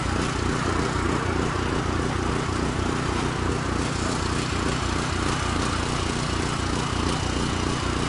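Steady engine drone with an even low throb of about four pulses a second, under a constant hiss.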